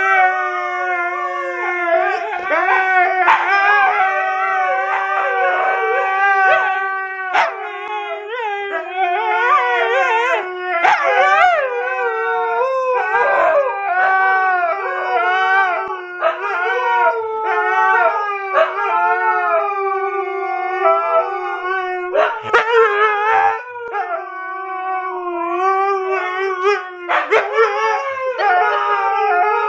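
Siberian husky howling, or 'singing', in long wavering notes one after another, with a few short sharp yelps in between.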